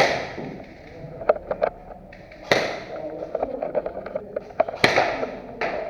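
Airsoft gunfire: four sharp loud shots, each with a short fading tail, with quicker runs of quieter clicks between them.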